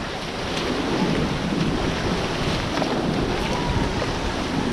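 River rapids rushing around a raft as it runs the whitewater, with wind buffeting the microphone.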